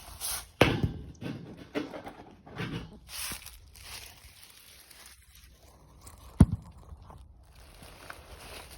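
Footsteps and handling knocks as a phone is moved and set up, with a sharp thump about six and a half seconds in.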